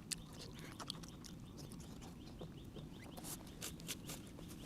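Faint close-up chewing with irregular small wet mouth clicks and smacks from a person eating, over a low steady background hum.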